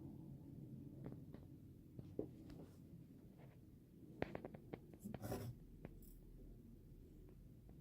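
Faint low hum with scattered light taps and clicks, most of them bunched about four to five and a half seconds in, like small objects being handled.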